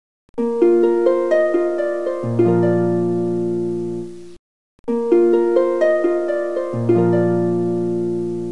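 Background music of plucked-string notes over a held low note, a short phrase that stops briefly and repeats about every four and a half seconds.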